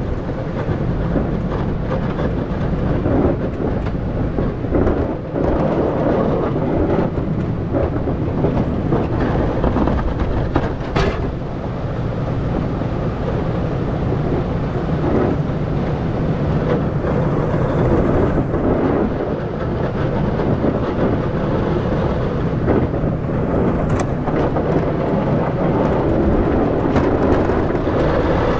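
Ram Cummins diesel pickup plowing snow with a Fisher XV2 stainless V-plow: a steady rumble of the truck running and the blade pushing snow along the road, with a couple of sharp knocks.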